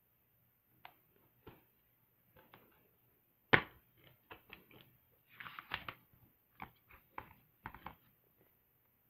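Plastic DVD keep case handled and snapped open, with one sharp click about three and a half seconds in. This is followed by a run of lighter clicks and a brief rustle as the paper booklet inside is handled and lifted out.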